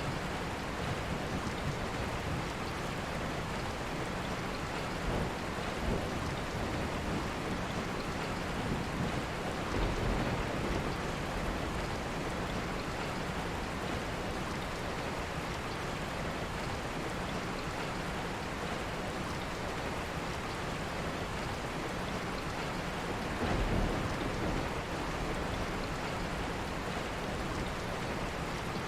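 Steady, dense rain falling, with two brief low rumbles: one about ten seconds in and another near the end.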